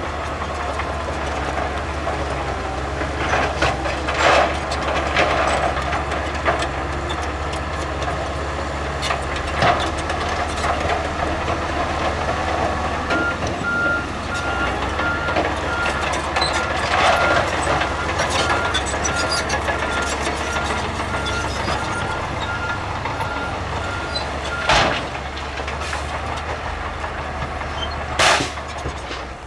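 Heavy earthmoving machinery at work: a diesel engine running steadily, with a few sharp metallic clanks. A reversing alarm beeps evenly from a little before the middle until near the end.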